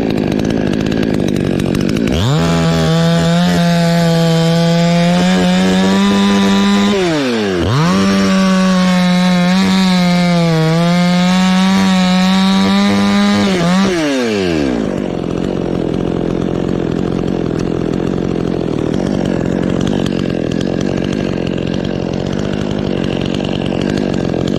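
Chainsaw cutting into a coconut tree trunk: the engine runs at high revs, dips briefly about seven seconds in, drops away around fourteen seconds, then carries on as a rougher, noisier saw sound.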